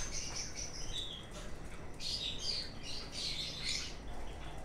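Small caged pet birds in a breeding room chirping and twittering, high-pitched calls coming in clusters, busiest in the second half.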